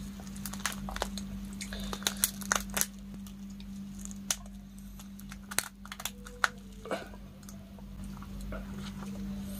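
Shell of a cooked giant freshwater prawn cracking and tearing as gloved hands pull it apart: scattered sharp cracks and crackles, busiest about two and six seconds in, over a steady low hum.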